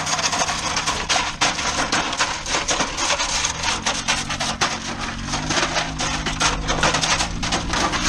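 Dense scraping, crunching and clattering as a burnt-out microwave's metal shell is dragged over dirt and gravel behind a slowly moving van, with tyres crunching on the gravel and the van's engine running low underneath.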